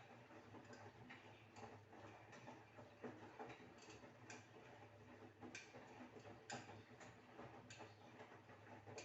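Washing machine running faintly: a low steady hum with irregular soft clicks and taps, about one or two a second.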